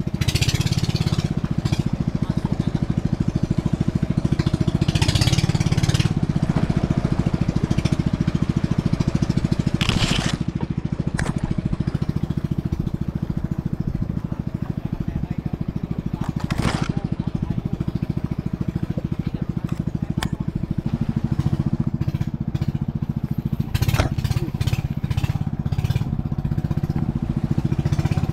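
Small boat engine running steadily, a low even engine note, with a few brief sharp knocks or splashes over it.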